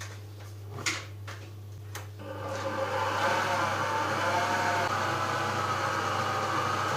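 Electric stand mixer with a dough hook. Two short clicks come as the hook is fitted and the head lowered, then about two seconds in the motor starts and runs steadily, kneading flour, oil and water into bread dough.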